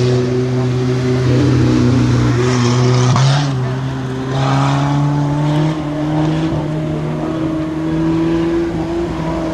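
Rokkiralli race car engines running hard. The note dips briefly about three seconds in, then climbs slowly.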